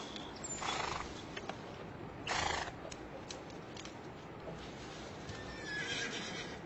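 Animal vocal sounds: two short, rough, breathy bursts over the first three seconds, then a faint wavering high-pitched call near the end.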